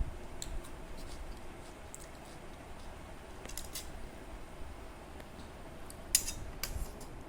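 A person eating: scattered sharp, crisp crunches and clicks, the loudest pair about six seconds in.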